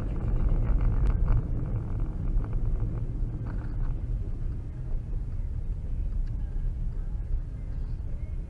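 Steady low rumble of a vehicle driving on a snowy road, its engine and tyres heard from inside the cab, with a few faint clicks in the first four seconds.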